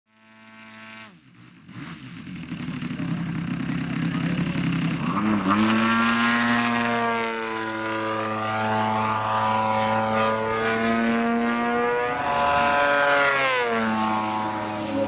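Engine and propeller of a radio-controlled Extra 300 LX aerobatic model plane droning in flight, fading in over the first few seconds. Its pitch rises about five seconds in, holds, and drops near the end.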